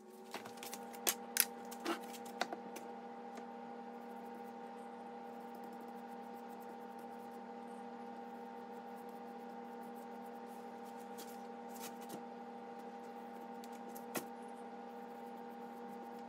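Steady electrical hum, with several light clicks and taps in the first few seconds and a couple more later, from handling an open can of wood stain and a paintbrush.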